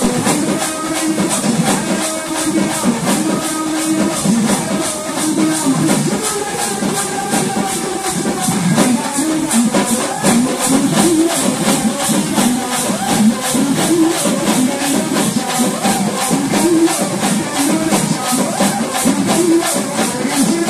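Live festival music: an even beat of crisp high percussion strikes, about three a second, with drumming and a sustained melody over it.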